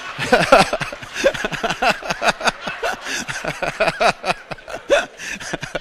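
A room full of people laughing, with many overlapping chuckles that rise and fall throughout.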